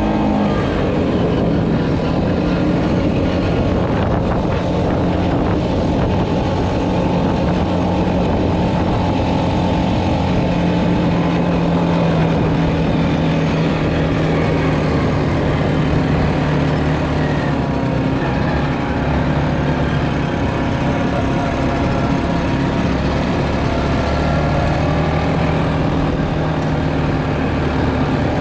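Quad bike (ATV) engine running while riding, its note drifting slightly up and down with the throttle, over a steady low rush of wind on the microphone.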